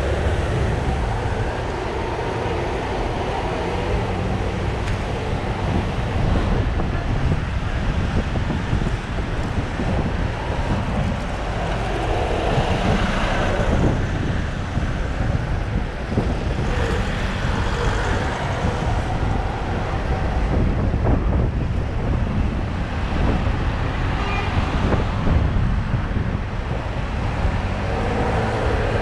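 City road traffic heard from a moving bicycle: cars, vans and a bus passing close alongside, over a steady rumble of wind on the microphone. The traffic swells louder around the middle, when a bus runs right beside the bike.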